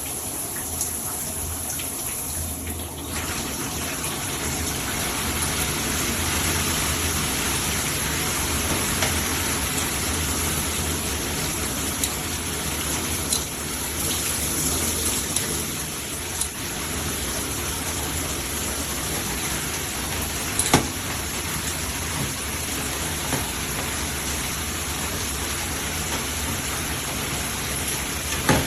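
Water spraying steadily from a Hibbent shower head combo, with a few sharp clicks, the loudest about twenty seconds in.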